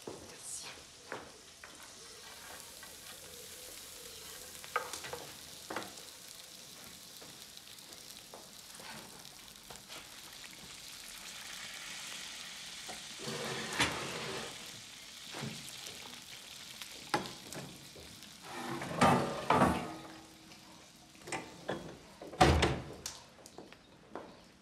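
A rack of veal and vegetables sizzling in a roasting dish on a kitchen stove, a steady hiss that grows louder about halfway through. Several sharp knocks and clatters come in the second half, the loudest near the end.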